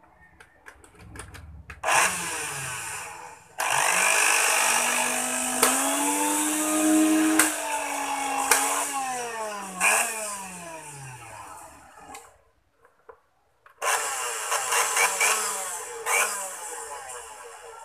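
National Omega blender's motor running with no jar fitted, its drive coupling spinning, switched on and off with its push buttons in three runs. The first is brief, the longest lasts about eight seconds with its pitch rising and then falling, and the last is shorter. It is a test run of the blender after servicing.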